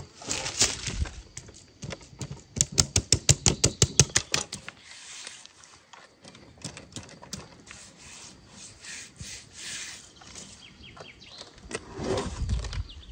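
Wire mesh grilling net being pressed and shaped by hand around a large whole fish: scraping and rustling of the metal netting, with a quick run of sharp clicks lasting about two seconds, starting a couple of seconds in.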